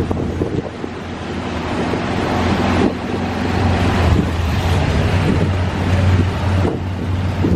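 A vehicle running with a steady low hum, buried under heavy wind noise buffeting the microphone.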